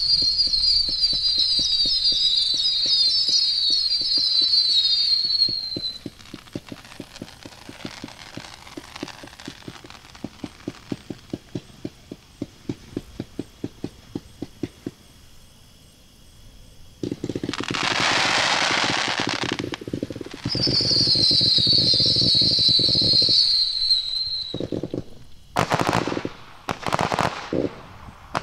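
A 500g consumer firework cake firing a barrage. First come many overlapping high whistles, then a fast even run of shots at about three a second. After a short lull there is a loud dense crackling, then more whistles with thumps, and a few sharp bangs near the end.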